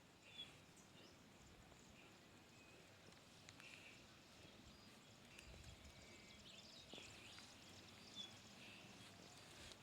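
Near silence: faint rural outdoor ambience with a few brief, faint bird chirps scattered through it.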